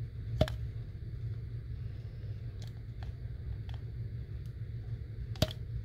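Sharp clicks from a capped, empty plastic syringe being squeezed, its plunger pressed against the trapped air: two loud clicks about five seconds apart, one about half a second in and one near the end, with a few fainter clicks between. A steady low rumble runs underneath.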